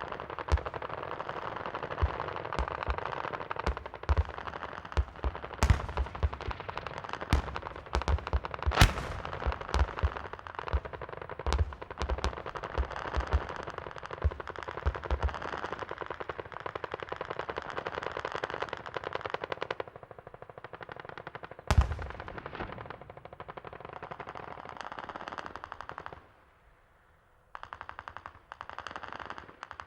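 Battlefield gunfire: dense rapid machine-gun fire with louder single shots cracking through it, and one heavy blast about two-thirds through. Near the end the firing drops away briefly to near silence, then a fast, even burst starts up again.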